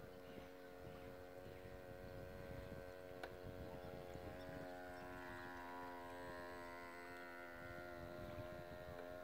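Radio-controlled model ship's small motor running with a faint, steady whine as the boat cruises, over a low, uneven rumble.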